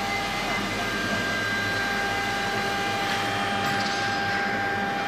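CC MS3020K12 four-axis CNC engraving machine running with a steady whine made of several high tones over a hiss.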